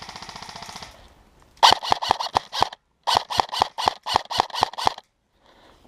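Airsoft guns firing: a short, fast rattling burst at the start, then two loud strings of sharp shots at about seven a second, with a brief pause between them.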